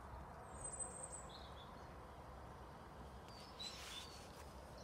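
Quiet outdoor ambience: a faint, steady low rumble with a few small bird calls, a thin high call about a second in and short chirps near the end.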